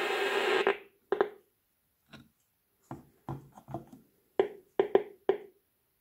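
Geiger counter clicking through the ratemeter's loudspeaker from an SBT11A Geiger-Müller tube probe. A dense, rapid crackle of counts cuts off abruptly under a second in. It is followed by about ten sparse, irregular single clicks.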